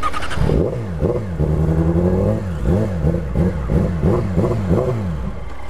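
Motorcycle engine revved in about ten quick blips, one rev held for about a second near the start, over another motorcycle engine idling steadily.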